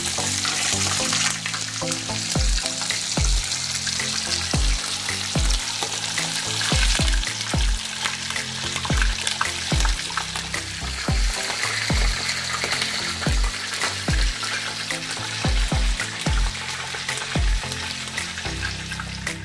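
Food frying in hot oil in a pan: a steady sizzle, with background music and a regular low beat underneath.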